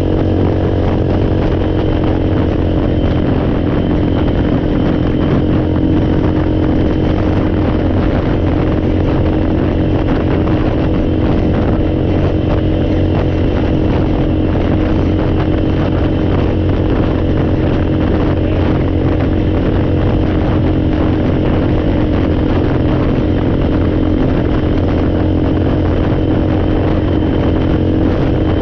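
A four-wheeler (ATV) engine running steadily under way at a constant speed, its pitch holding level with no revving.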